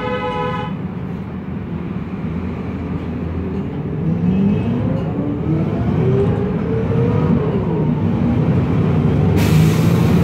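Inside a 2008 MAN Lion's Classic CNG city bus under way: the MAN E2876 gas engine and ZF Ecomat 6HP504C six-speed automatic gearbox run with a whine that rises as the bus picks up speed, then falls as the gearbox shifts up. A short beep sounds right at the start, and a steady hiss starts near the end.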